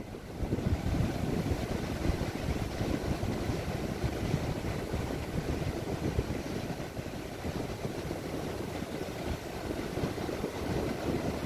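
Strong wind buffeting the microphone in irregular gusts, a low rumbling flutter over the hiss of breaking surf. It grows louder about half a second in.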